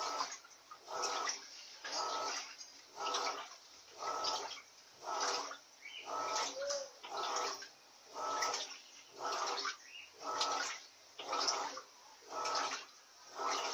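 Electrolux Silent Control LAC 16 washing machine agitating a load with a duvet in it: water and bedding swish back and forth about once a second, with short pauses between strokes.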